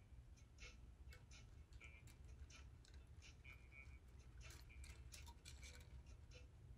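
Faint, irregular clicking of small metal jump rings and pliers as slides are linked onto a wire lampshade frame, over a low steady hum.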